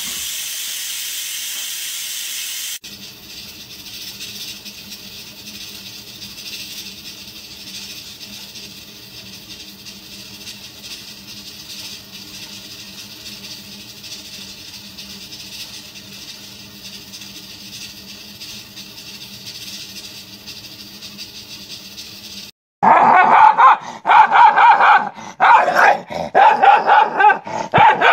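A steady hiss for about the first three seconds, then a faint steady hum. About five seconds before the end, dogs break into loud, rapid barking and snarling.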